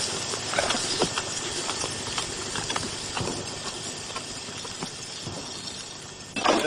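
Outdoor camcorder sound: a steady hiss with soft, irregular footstep thumps on a grassy slope. A louder rush of noise comes in just before the end.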